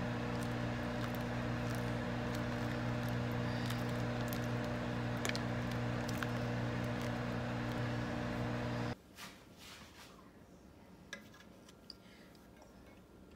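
A plastic spoon stirring simmering chili in an enamelled cast-iron pot, with soft scraping and small clicks, over a steady electrical hum. The hum and stirring cut off suddenly about nine seconds in, leaving quiet room tone with a few faint ticks.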